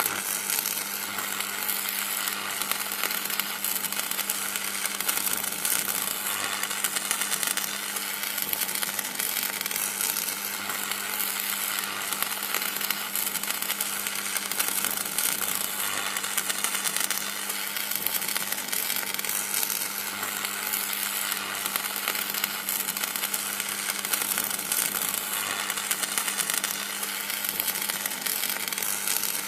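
Electricity sound effect: continuous crackling and buzzing over a steady low electrical hum.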